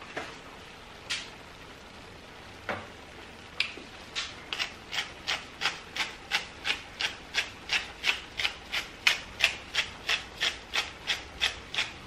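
A hand-twisted salt and pepper grinder mill grinding seasoning over a pan: a few single twists, then from about four seconds in a steady run of short grinding strokes, about three a second.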